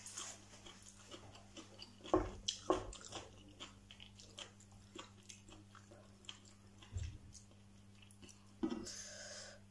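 Close-up mouth sounds of a person chewing a mouthful of stir-fried instant noodles, with scattered wet clicks and a few sharper crunches, the loudest about two seconds in. A steady low hum sits beneath.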